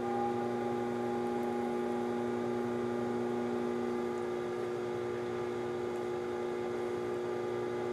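Electric pottery wheel motor running at a steady speed: an even hum with several steady whining tones over it.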